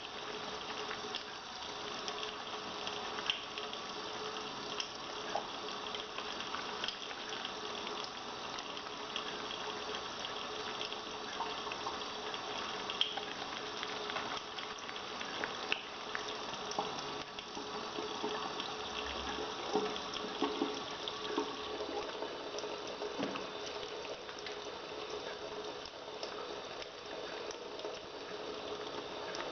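Tap water running steadily into a sink while soapy hands are rubbed and washed, with many small irregular wet clicks and splashes over the flow.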